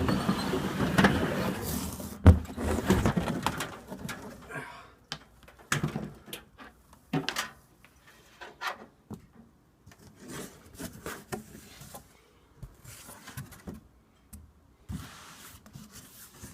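Cardboard box being opened and a box fan worked out of it: rustling and scraping for the first four seconds or so, with a sharp knock about two seconds in, then scattered knocks and clicks of handling.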